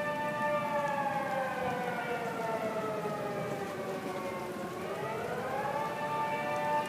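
Outdoor tornado warning siren sounding for a tornado warning. It holds a steady multi-note tone, then its pitch slides slowly down for about four seconds and climbs back up to the steady tone near the end.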